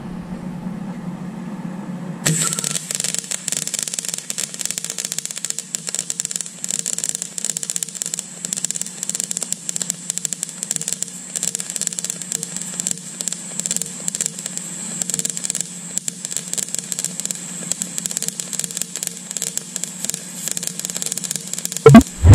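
MIG welding arc crackling and sizzling steadily as a bead is run on a thin 1 mm steel saw blade at low power and wire speed, starting about two seconds in over the welder's steady hum. A couple of loud knocks near the end.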